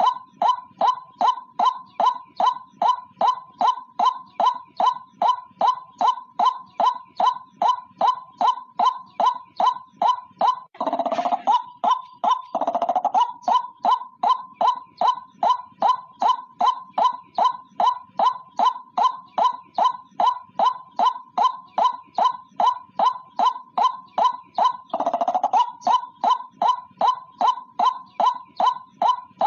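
White-breasted waterhen (ruak-ruak) call repeated monotonously, a steady string of short notes at about two and a half a second, the lure call used to attract the bird. Twice, about eleven seconds in and again near twenty-five seconds, the notes turn briefly denser and rougher.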